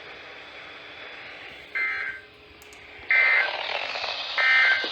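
Emergency Alert System end-of-message data code over a radio receiver: three short, buzzy digital bursts about 1.3 seconds apart, marking the end of the severe thunderstorm warning. A hiss of radio static comes up with the second burst and stays.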